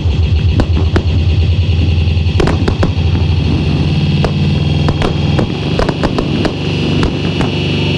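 Fireworks show: aerial shells and comets going off in sharp bangs and crackles over loud trance music with a heavy, pulsing bass line. The bass drops out near the end, leaving the firework bangs.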